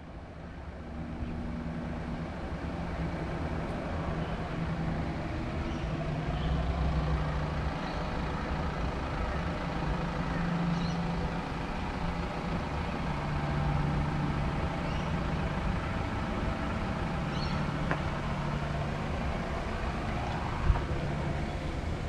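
Steady low rumble of motor-vehicle traffic, with faint high bird chirps now and then and one sharp click near the end.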